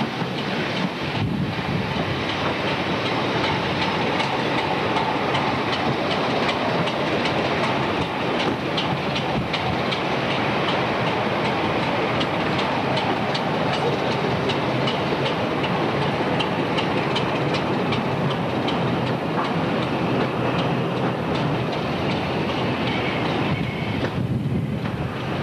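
Passenger train coaches rolling along the track, a steady rumble with wheels clicking over rail joints.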